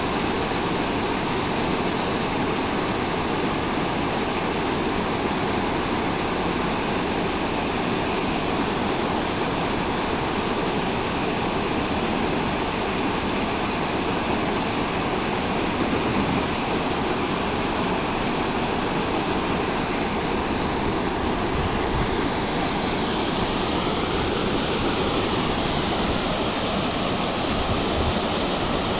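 Monsoon waterfall: a steady, dense rush of falling and splashing water.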